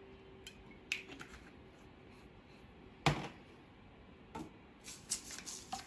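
Kitchen items being handled on a worktop: a few light clicks and knocks, one louder knock about three seconds in, and a quick run of small clicks near the end.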